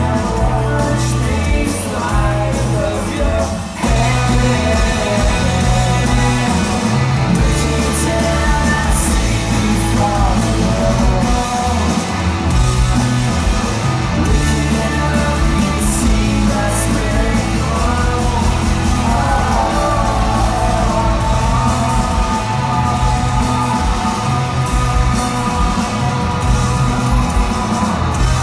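Rock band playing loud live, with singing over a stepping bass line, heard amplified in a large hall.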